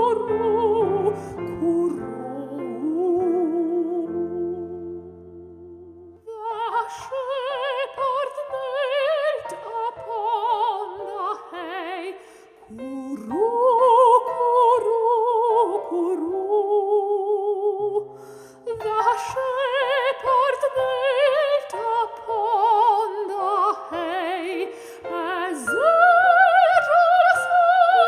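Classical soprano singing a carol in phrases with wide vibrato, over piano accompaniment that is heard alone briefly about a fifth of the way in.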